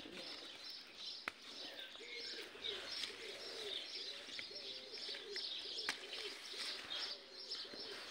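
A dove cooing: a low call repeated over and over from about two seconds in, with small birds chirping steadily behind it. Two sharp clicks stand out, one about a second in and one near six seconds.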